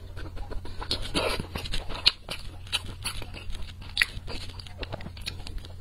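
Close-miked eating sounds: biting into and chewing a soft piece of sauce-coated meat, with many short wet smacks and clicks of the mouth over a steady low hum.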